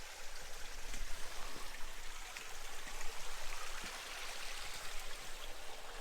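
Shallow creek running over rocks, a steady trickling and babbling.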